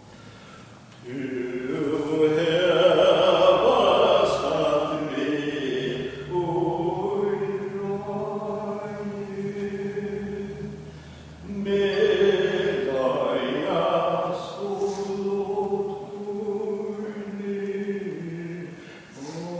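Choir singing a cappella in slow, held phrases, a new phrase starting about halfway through.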